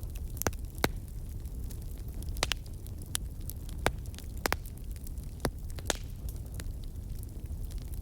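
Burning wood crackling: sharp pops at irregular intervals, about one a second, over a steady low rumble from the fire.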